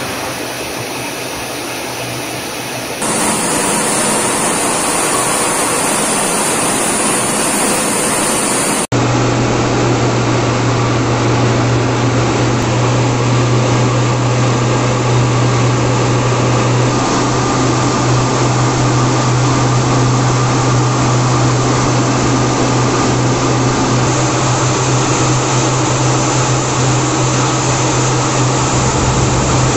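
Jet aircraft engine noise: a steady rushing sound that changes abruptly about 3 and 9 seconds in. After the second change a steady low hum runs beneath it.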